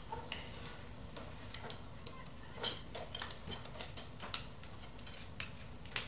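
Irregular light metallic clicks and taps of pliers and a screwdriver working on the splined output shaft and clutch-pack hub of a Porsche 958 Cayenne transfer case.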